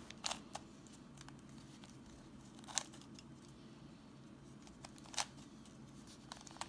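A few sparse plastic clicks as the layers of a Fisher cube, a shape-modded 3x3 puzzle cube, are turned by hand, over a faint low hum.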